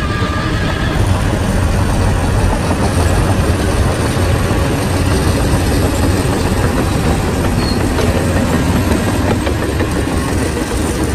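Shantui crawler bulldozer's diesel engine running loud and steady under work.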